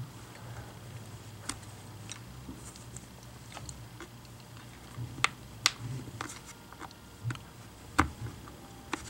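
Scattered sharp clicks and ticks, about ten at irregular intervals, from a hobby knife and a flat metal pry tool working into the plastic seam of a Chromebook's screen assembly, prying at its clips. A faint low steady hum runs underneath.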